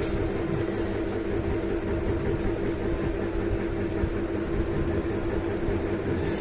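A steady mechanical hum with one constant tone and a low rumble, like a motor running. It does not change in pitch or level.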